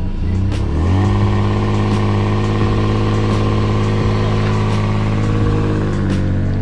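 Subaru WRX turbocharged boxer four-cylinder engine starting up. Its pitch rises about a second in, then it runs at a steady fast idle.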